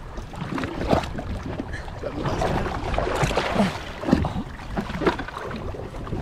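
Water sloshing and splashing against a boat's hull, with wind rumbling on the microphone. A hooked Spanish mackerel thrashes at the surface alongside, making irregular splashes, busiest about three seconds in.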